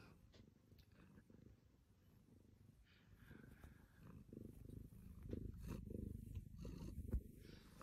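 A tabby cat purring, a faint low rumble that grows louder about halfway through, with one soft thump near the end.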